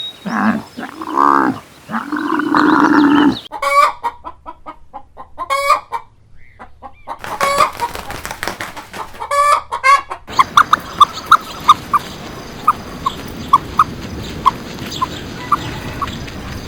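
Chickens calling in several short, abruptly cut clips: drawn-out pitched calls, then a run of short clucks about twice a second near the end.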